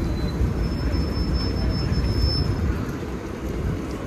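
Nova Bus LFS city bus running as it pulls in to the curb, a steady low rumble, with a thin high whine for about two seconds in the first half.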